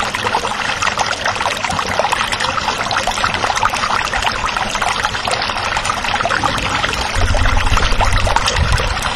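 Water sound effect: a dense crackle of running water, with a low rumble coming in about seven seconds in.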